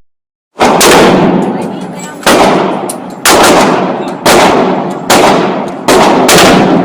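A series of six very loud rifle shots from a .50 BMG rifle, coming about a second apart after a short silence. Each shot is a sharp crack followed by a long fading boom that is cut short by the next shot.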